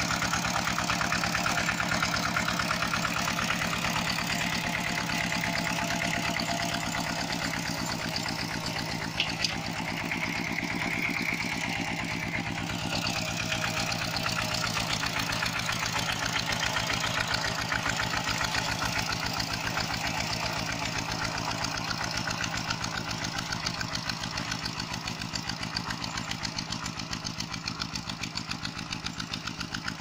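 Two-wheel walking tractor's single-cylinder diesel engine running steadily with an even rapid chugging, while the tractor drives its steel cage wheels through flooded paddy mud. It grows fainter over the last few seconds as the tractor moves away.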